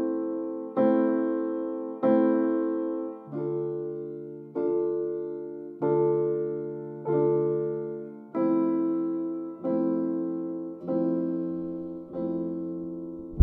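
Music: a keyboard playing slow chords, one struck about every second and a quarter, each ringing out and fading before the next.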